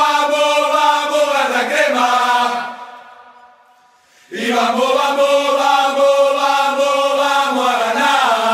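Football supporters' chant sung by a group of voices in long held notes; one phrase fades out about three seconds in and the next starts sharply about a second later.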